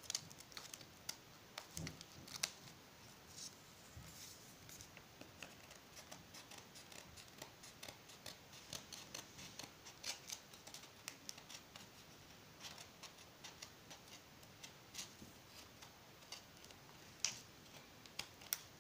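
Scissors trimming excess paper in many short, irregular snips, faint and hard going.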